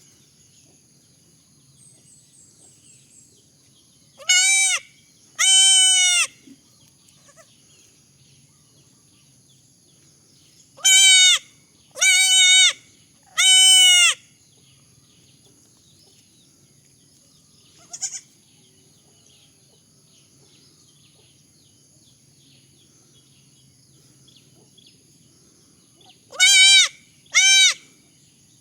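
Baby goat bleating: seven loud, high-pitched bleats, about half a second to a second each. They come as two about four seconds in, three about eleven seconds in, and two near the end.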